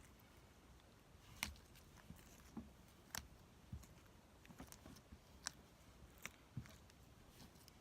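Slime being squished and poked, making faint, irregular little clicks and pops, about one a second.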